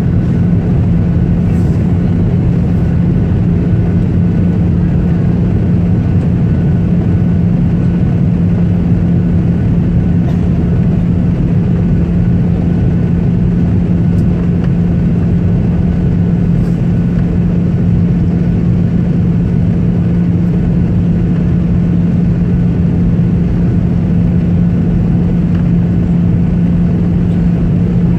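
Airliner cabin noise during the landing approach: the engines give a steady drone with a constant low hum throughout.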